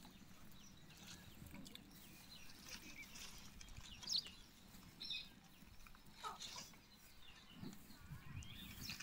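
Faint, scattered short clucking calls of chickens, a few at a time and several seconds apart, over a low steady background.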